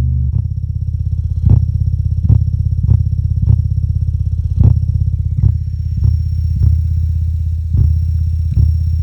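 JBL Partybox 300 speaker playing deep, bass-heavy music loud: a low sustained bass drone broken by sharp hits every half second to a second.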